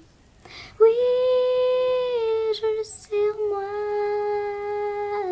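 A girl singing unaccompanied: a breath in, a long held note that slips down at its end, another breath, then a second long held note slightly lower in pitch.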